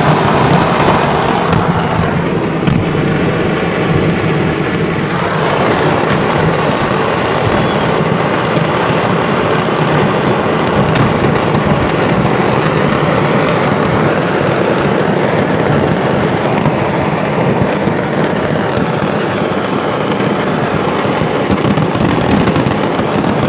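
A burning fireworks market's stock going off all at once: a loud, continuous crackle of firecrackers, dense with sharp pops and bangs.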